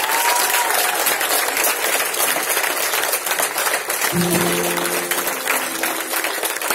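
Audience applauding, with a few whistles at the very start. About four seconds in, an acoustic guitar sounds a few notes that ring on under the applause.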